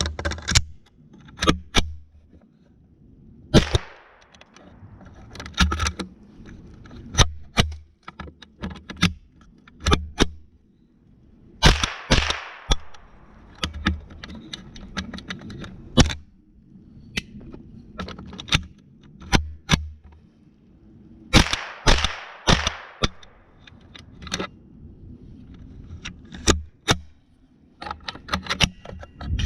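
Henry U.S. Survival AR-7 semi-automatic .22 Long Rifle firing many sharp shots, some in quick runs and some a second or two apart.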